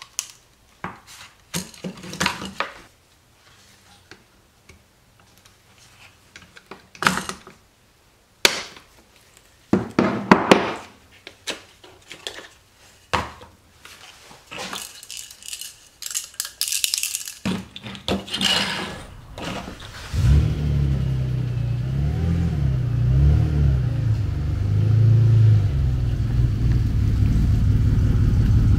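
A screwdriver prying and clicking at the plastic turn-signal harness connector and grill clips, sparse sharp clicks and scrapes with quiet gaps between them. About two-thirds of the way through, the louder sound takes over: a 2011 Jeep Wrangler's 3.8-litre V6 running steadily as the Jeep rolls slowly.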